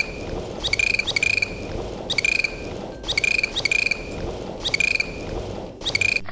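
An animal's short rasping calls, repeated about once a second, some coming in quick pairs, over a steady background hiss.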